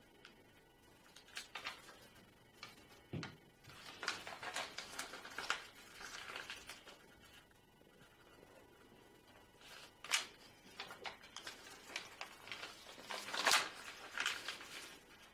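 A sheet of origami paper rustling and crackling as it is folded by hand and its folds pressed flat, edges brought in to the centre crease. The sound comes in scattered bursts, the loudest a little before the end.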